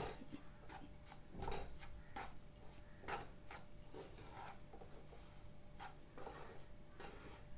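Spatula scraping and knocking through gram flour and semolina roasting in ghee in a non-stick kadai, in faint, irregular strokes about two a second.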